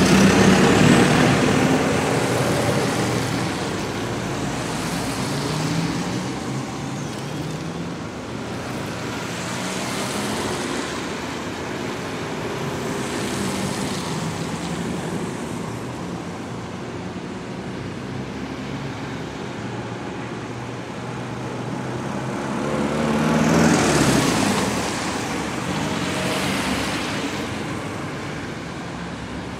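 Constant road traffic: a continuous wash of passing vehicles with engine hum. Single vehicles pass close, swelling and fading, about a second in and twice near the end.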